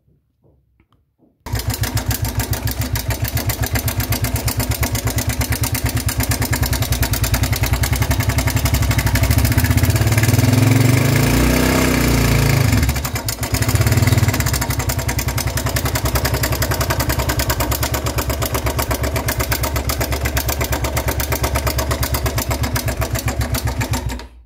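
Motorcycle engine starting and running with a loud, rapid, even clatter. It is revved briefly in the middle and then shut off near the end. The noise resembles loose tappets or a slack timing chain, and the owner traces it to the cam chain tensioner.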